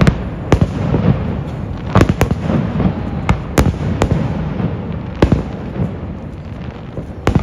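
Fireworks display: about eight sharp, loud bangs at irregular intervals over a steady bed of smaller pops and crackles.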